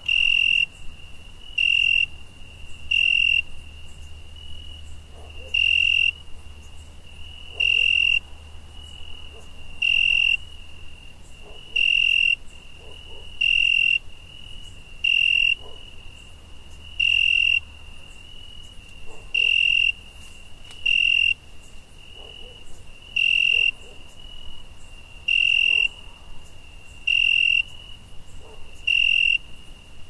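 Crickets chirping: a steady high-pitched trill runs throughout, with a louder chirp of about half a second every two seconds or so.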